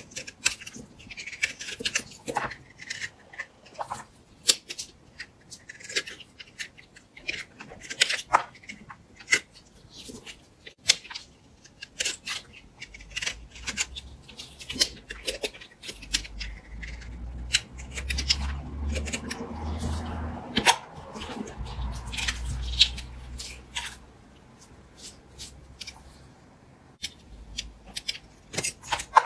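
Knife cutting into bar soap: a run of irregular, crisp crunching and crackling cuts, with a low rumble under the middle stretch.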